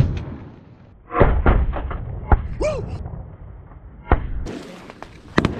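Several sharp knocks and thuds, the loudest run of them starting about a second in, with a single short duck quack in the middle.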